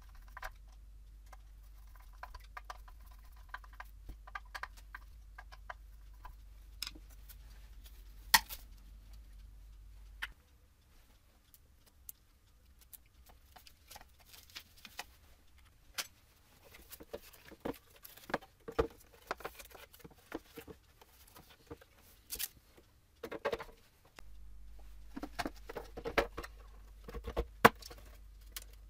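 Small clicks, taps and scrapes of hand assembly work on a car headlight: a screwdriver on the bi-xenon projector's mounting screws, chrome plastic shrouds knocking together, and the projector being seated in the black plastic headlight housing. There is one sharper knock about eight seconds in, and a low hum under the first third and the last few seconds.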